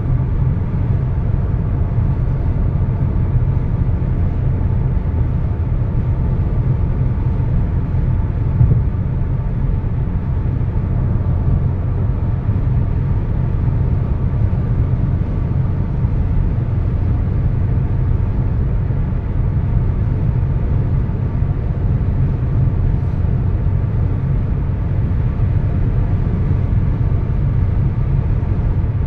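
Steady road noise inside a car cruising on a highway: a constant low rumble of tyres and engine, with no change in pace.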